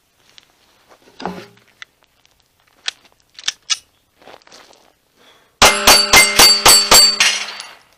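Glock 48 9 mm pistol fired in a fast string of about six shots, roughly four a second, at a six-plate steel rack, each hit setting the steel plates ringing. The ringing fades within a second after the last shot. Before the string there are only a few faint handling clicks.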